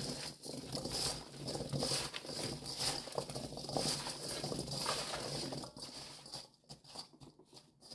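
Cut Korean radish sticks tossed by gloved hands with salt in a stainless steel bowl. The pieces rustle and clatter against each other and the bowl. The tossing is busy for about six seconds, then thins to a few scattered knocks near the end.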